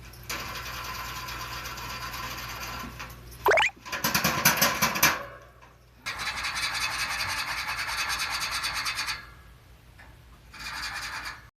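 Lovebird thrashing about, giving long bursts of rasping, scraping noise. About three and a half seconds in there is a quick rising squeak, then a loud fast rattle of clicks.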